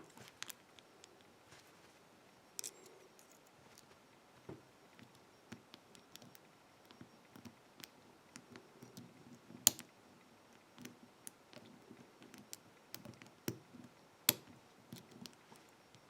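Faint scattered clicks and light scrapes of a hook pick and tension wrench working the pin stack of a padlock, pins clicking as they set. Two sharper clicks stand out, about ten seconds in and again about fourteen seconds in.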